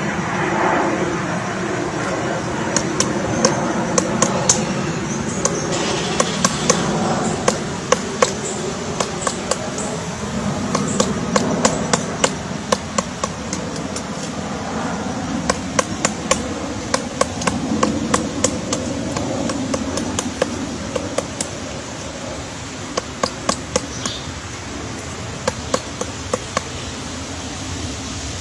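Woodpecker pecking at wood: sharp, irregular knocks, often in short clusters of a few strikes, over steady background noise.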